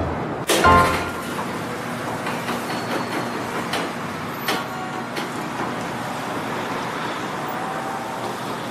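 Metal roller shutter rattling open, with a sharp clank about half a second in and a few lighter knocks after, over a steady hiss of street traffic.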